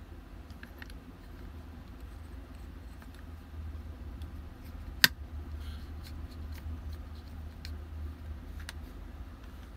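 Faint scattered clicks and light handling taps over a low steady hum, with one sharp click about five seconds in.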